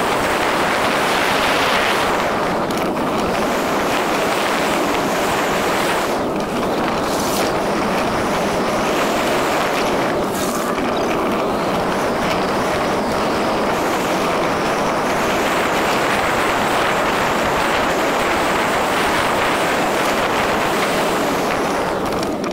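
Steady, loud rushing noise of a vehicle on the move, without a clear engine note.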